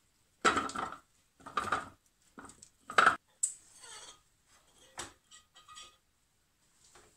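Orange and lemon wedges tipped from a ceramic plate into a plastic food processor bowl. They drop in with four bursts of knocks in the first three seconds, the loudest about three seconds in, then a few lighter taps.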